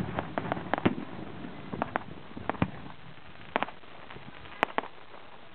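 Fireworks going off: a dense run of sharp crackling pops in the first second, thinning out to scattered single cracks, one of them louder about four and a half seconds in.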